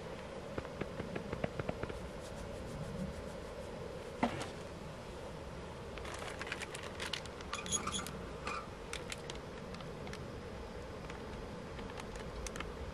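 Small clicks and rustling of items being handled at a folding camp table, with a sharper click about four seconds in and a spell of packaging crinkling from about six to nine seconds in as a food pouch is handled. A faint steady hum runs underneath.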